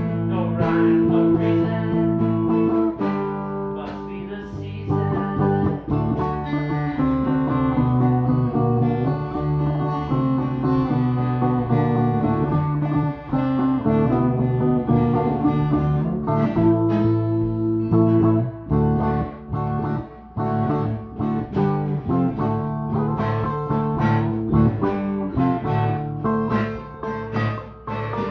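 Stratocaster-style electric guitar played live, a continuous passage of picked notes and chords that ring on between attacks.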